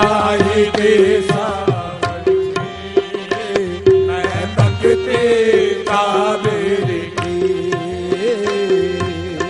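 Qawwali music: harmonium notes held over tabla strokes, the tabla's bass drum sliding down in pitch on some strokes.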